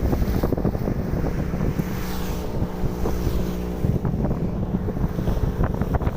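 Wind buffeting the microphone at the seashore, with a steady hum running through it for about two seconds in the middle.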